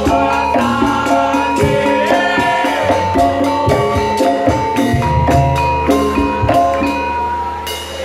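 Javanese gamelan-style ensemble playing live: a melody of ringing metallophone notes over steady drum and percussion strokes.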